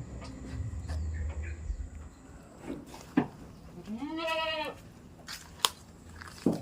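A goat bleats once, about four seconds in: a single call under a second long that rises and falls in pitch. A few sharp knocks are heard around it, the loudest at about three seconds and just after five and a half.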